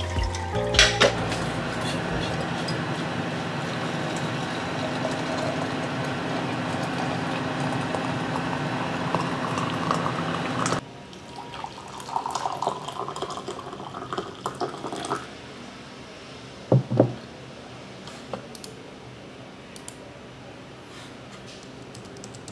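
Steady running water at a kitchen sink for about ten seconds, cut off abruptly. Then tea is poured from a ceramic teapot into a mug, and about two seconds later comes a short clink of china set down on the table.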